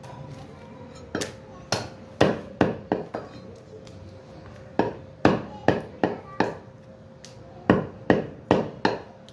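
Heavy meat cleaver chopping mutton on a round wooden log chopping block. About sixteen sharp chops come in three quick runs, each a hard knock of the blade through the meat into the wood.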